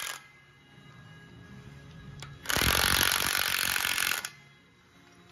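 Cordless impact wrench running on a mantle clamp-plate bolt in one burst of nearly two seconds, starting about halfway through, over a faint background music bed.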